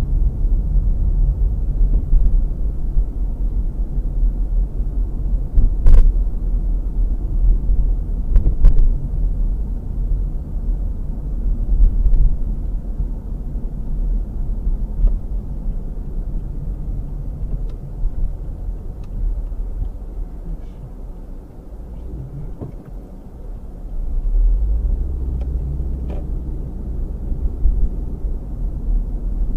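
Car driving, heard from inside the cabin through a dashcam: a steady low rumble of engine and road noise. There is a sharp knock about six seconds in and two more about eight and a half seconds in. The rumble dips for a few seconds a little past twenty seconds in, then picks up again.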